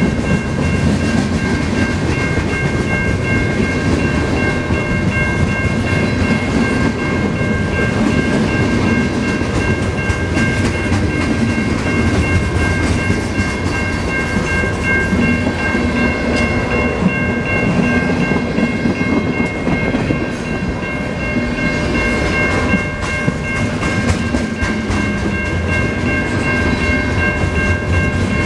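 Freight cars of a long train rolling past close by, a steady rumble of wheels on rail with some clacking over the joints. A steady high whine of several tones sits over the rumble.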